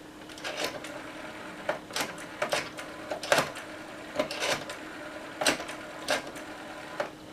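Telephone buttons pressed one at a time to dial a number: about ten short clicks at uneven intervals.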